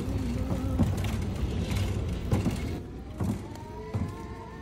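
Shopping cart wheels rumbling over pavement, with several sharp knocks. About three seconds in the rumble falls away and quiet music with long held notes takes over.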